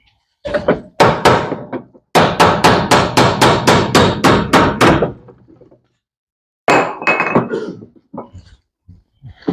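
Sharp metal knocks while a puller is fitted to a washing machine's transmission: a few single knocks, then a steady run of about four knocks a second for nearly three seconds, then two shorter groups.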